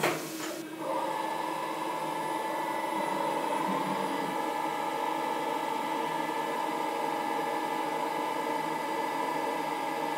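CNC milling machine spindle running at speed with a steady high whine, the tool spinning free next to the work. A short, loud, noisy burst at the very start, before the whine settles in.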